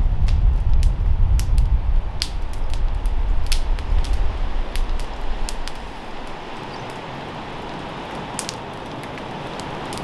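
Small wood campfire crackling, with irregular sharp pops. Wind rumbles on the microphone for the first half and dies away about halfway through.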